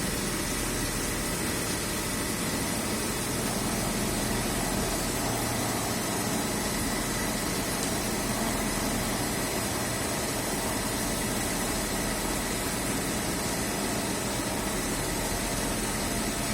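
Steady mechanical hum and hiss, with faint high steady whines, holding an even level throughout.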